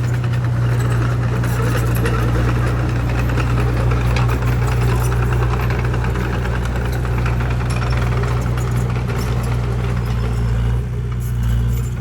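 Diesel engine of earthmoving machinery running steadily, with a constant deep drone and a dense clatter over it.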